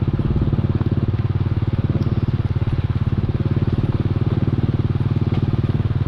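Small motorcycle engine running steadily while riding, its exhaust pulses fast and even.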